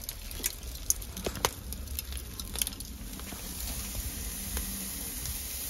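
Charcoal embers crackling in a barbecue grill, with scattered irregular small pops over a low steady hiss.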